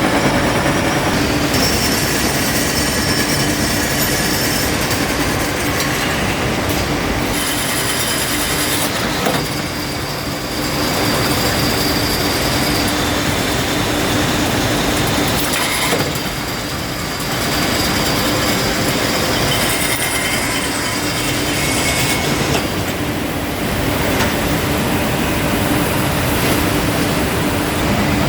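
Steel rebar rolling mill running: a loud, steady industrial din with a constant hum and intermittent high metallic squeals as 16 mm bar is rolled. The noise eases briefly twice.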